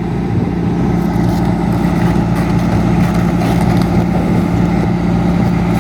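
Diesel engine of farm machinery running steadily at a constant speed, one unchanging low drone.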